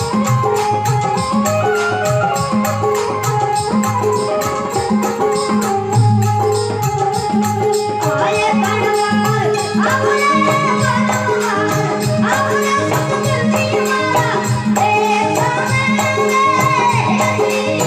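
Devotional folk music (a guru bhajan) with a steady percussion beat and rattle over a repeating bass line; a high, wavering melody line comes in about eight seconds in.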